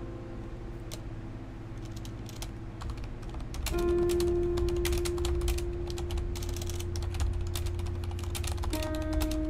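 Typing on a Corsair mechanical keyboard: scattered key clacks, then a fast steady run of keystrokes after a few seconds. Soft background music with long held notes plays under it.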